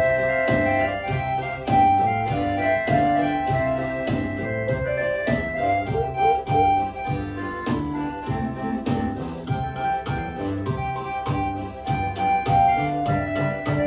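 Electronic keyboard ensemble in three parts with different voices, piano among them, playing along to a backing track with a steady beat.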